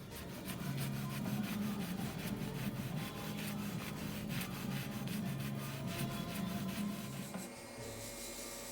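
Motorized buffer running against the tarnished steel of a sword blade, a steady motor hum under a scratchy rubbing of the wheel on the metal. Near the end the hum drops away, leaving a thinner rubbing hiss.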